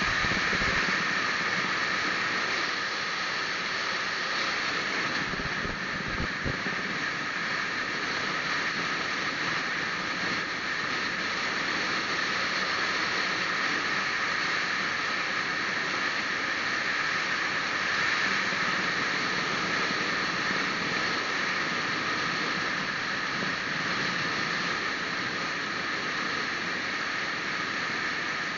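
Steady rushing road and wind noise of a vehicle driving along at a constant speed.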